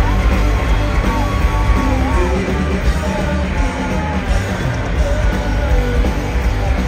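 Live hard rock band playing loud: distorted electric guitar, bass and drums under a sung male lead vocal, heard from within the audience.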